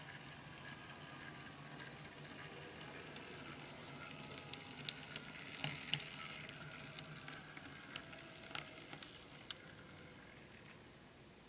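Brass model locomotive running along the track, its motor and wheels giving a steady hiss that swells as it passes close and fades as it moves away, with sharp clicks as the wheels cross rail joints near the middle.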